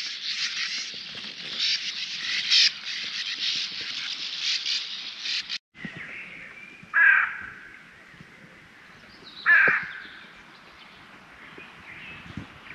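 A dense, high, steady chorus, like insects or birds, stops abruptly partway through. Then a crow-like bird calls twice, each call short and falling in pitch, about two and a half seconds apart.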